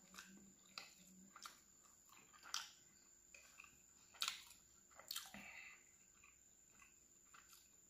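Quiet close-up eating sounds: wet chewing and lip smacks as hands tear flatbread and dip it in curry. A few sharper smacks stand out, the loudest about four and five seconds in.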